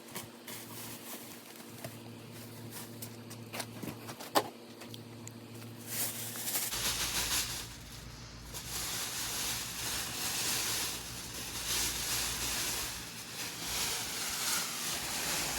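A low steady hum with a single sharp click about four seconds in, then from about six seconds in the uneven rustling and crinkling of plastic packaging wrap being pulled off a vending cooler.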